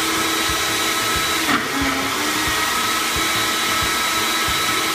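Countertop blender running at a steady speed, blending ice cream and milk into a thick shake, with a steady motor whine over the churning.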